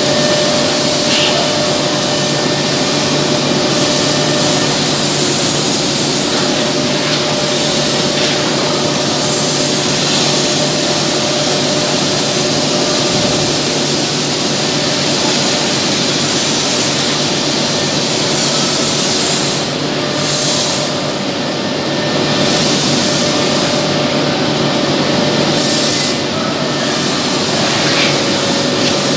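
Automatic-feed CNC wood lathe running and machining a round wooden blank: a steady, loud mechanical din with a constant whine, the hiss easing briefly a few times from about two-thirds of the way in.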